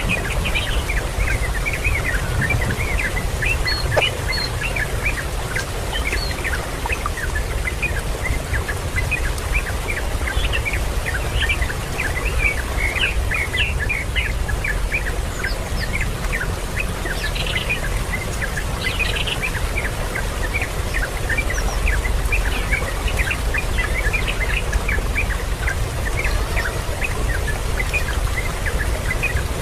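Birds chirping continuously, many short, quick calls overlapping, over a steady low rumble.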